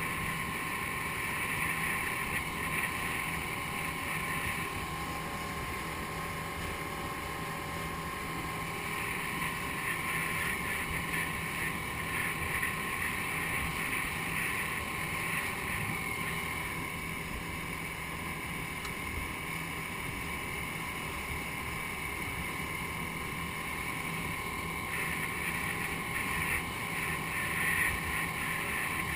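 Outboard motor of a rigid inflatable boat running steadily, with wind noise on the microphone.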